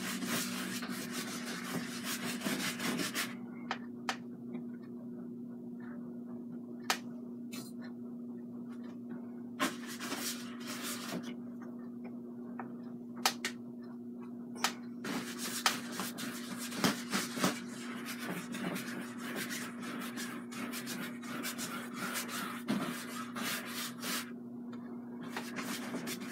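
Paintbrush scrubbing a wet coat of liquid clear and phthalo blue across a canvas, in stretches of brisk strokes with small clicks among them. A steady low hum runs underneath.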